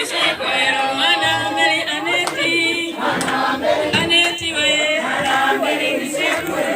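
A group of voices singing together, with several wavering voices heard at once.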